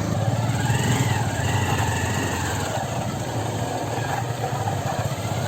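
Motorcycle engine running steadily at low revs, with a fainter higher whine that rises and falls about a second in.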